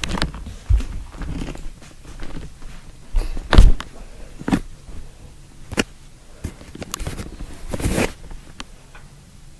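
Irregular knocks, thumps and rustles of a camera being handled and of someone moving about right beside it, the loudest thump about three and a half seconds in.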